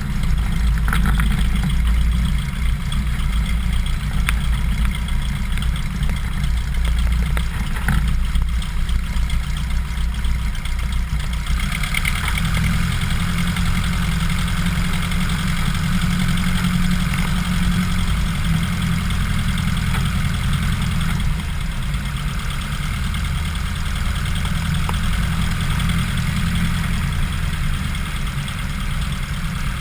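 Cessna 150's four-cylinder Continental O-200 engine and propeller running at low power while the plane taxis, a steady low drone. The sound gets a little fuller about twelve seconds in and eases again near twenty-one seconds.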